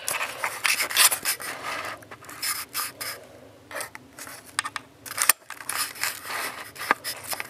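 Camera handling noise: hands gripping and moving the camera, with irregular rubbing and scraping strokes against its body.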